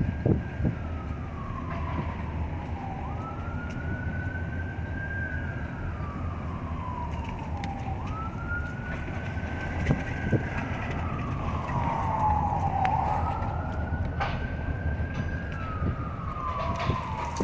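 An emergency vehicle siren on a slow wail, its pitch rising quickly and then falling slowly, repeating about every five seconds over a low rumble of traffic.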